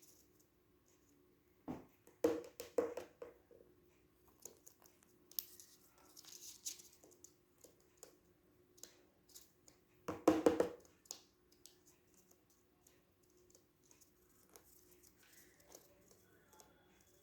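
Small scratches, taps and patters of a pet cockatiel moving about and pecking, with two louder bursts of rustling and knocking about two seconds in and about ten seconds in, over a faint steady hum.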